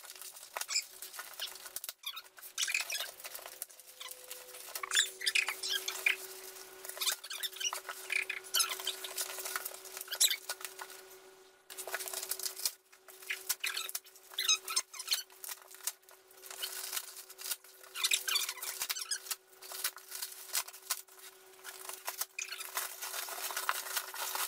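Expanding foam packing squeaking and crackling in irregular bursts as it is pulled and broken away by hand, with a faint steady tone underneath.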